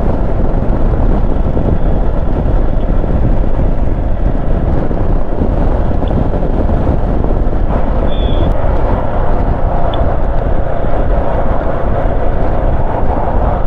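Motorcycle running along at road speed, a steady engine drone under heavy wind rush on the microphone, with a brief high beep about eight seconds in.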